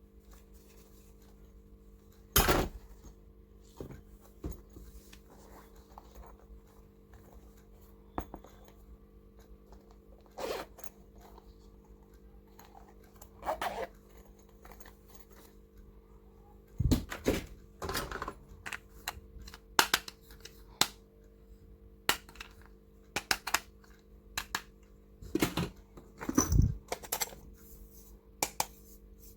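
Small plastic stationery and toys being handled: scattered sharp clicks and knocks, a few at first and more often in the second half, over a faint steady hum.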